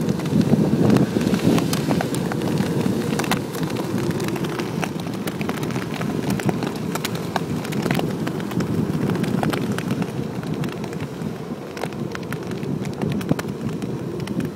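Kite buggy's wide balloon tyres rolling fast over sand strewn with shells: a steady low rumble with a dense, irregular crackle of shells crunching under the wheels.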